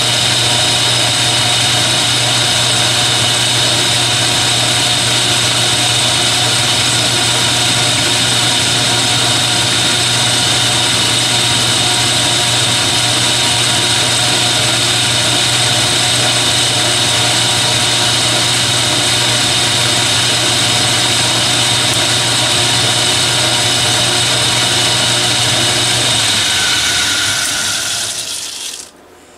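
Metal lathe running with a steady hum and whine while the end of a threaded shaft in its three-jaw chuck is faced off. Near the end the lathe spins down and stops.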